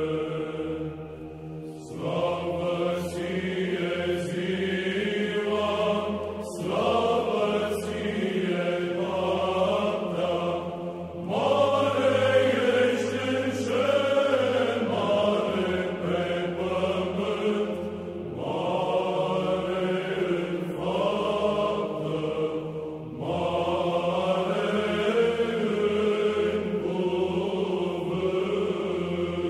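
Choral chant: voices singing long phrases of several seconds with short breaks between them, over a steady low drone that holds throughout.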